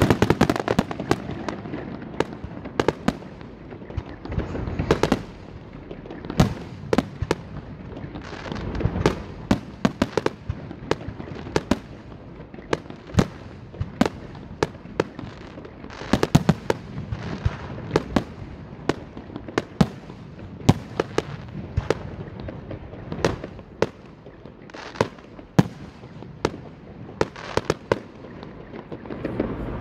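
Aerial fireworks shells bursting: many sharp bangs at irregular intervals, some in quick clusters of crackle, over a steady low background rumble.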